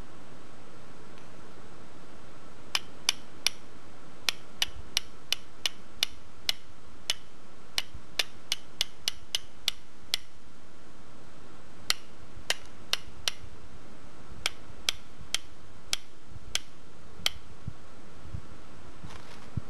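Flint struck against a carbon-steel striker: about thirty sharp clicks at two to three a second, in two runs with a short pause between, as sparks are thrown onto dry hemp tinder.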